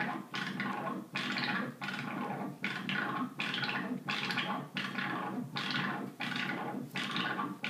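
Mogol synthesizer driven by a jerk-equation chaos circuit, the circuit's output sweeping the filter cutoff and pitch. It makes a gritty, noisy tone that pulses about two to three times a second, each pulse bright at first and then dulling, in a slightly uneven chaotic rhythm.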